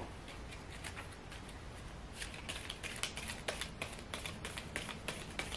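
A tarot deck being shuffled by hand: a quick, uneven run of light card clicks and flicks that starts about two seconds in.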